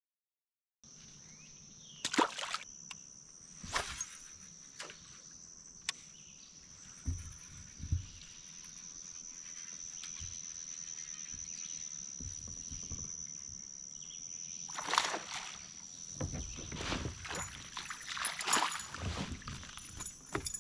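Kayak on the water: scattered knocks and splashes of paddle and gear against the hull, thicker near the end, over a steady high-pitched drone.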